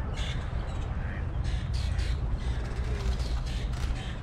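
Birds calling in a run of short, harsh, cawing calls, over a steady low rumble.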